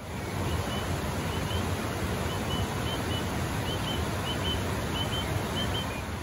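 Fast-flowing river rushing over shallow rapids: a steady hiss of running water. Over it, a small bird sings short high chirps in quick pairs, repeated about every half second or so.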